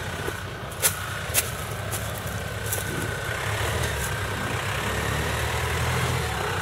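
Jeep Wrangler JK's 2.8 CRD diesel engine running at low revs as the Jeep crawls an off-road obstacle, its note swelling from about halfway through. Two sharp knocks about a second in.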